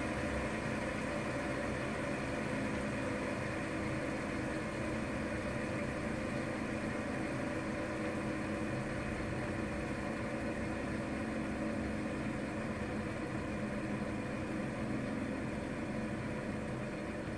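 Several metal fidget spinners whirring on their ball bearings, a steady hum.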